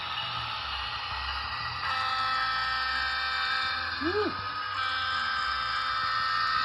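HO-scale diesel locomotive's DCC sound decoder playing its horn through the model's small speaker, one long steady chord held from about two seconds in, after a rushing diesel-engine sound. A short rising-and-falling chirp is heard about four seconds in.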